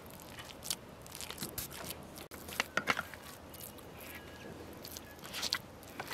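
Moist crackling and squishing of hands packing a crushed walnut and grated onion stuffing into a raw duck's cavity and pressing on the stuffed bird. The noises come as irregular short crackles.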